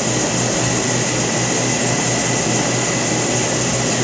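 Steady air-conditioning drone: an even hiss with a low hum and a thin high whine, unchanging throughout.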